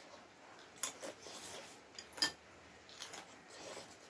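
Metal fork and spoon clinking and scraping against porcelain noodle bowls: a few short, sharp clinks, the loudest about two seconds in.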